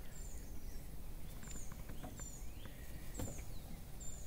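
A small bird calling nearby: a high, thin downward chirp repeated about once a second, over a low background rumble with a few faint ticks.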